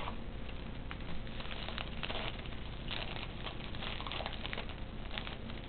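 Foil wrapper of a hockey card pack crinkling and crackling as it is handled and opened, in short irregular crackles.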